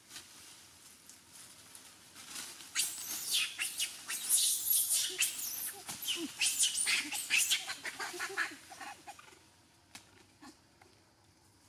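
Loud, high-pitched animal calls: a rapid run of short squealing cries that starts about two and a half seconds in, lasts about six seconds, then fades to a few scattered sounds.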